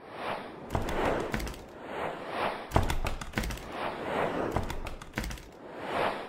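Sound effects for an animated logo intro: repeated whooshes about once a second, broken by sharp clicks and hits.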